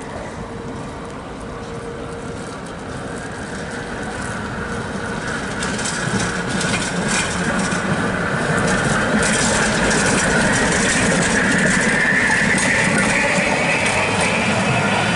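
Historic Konstal tram approaching and passing, growing steadily louder. Its motor whine rises in pitch over several seconds as it gathers speed, and the wheels rattle and click on the rails.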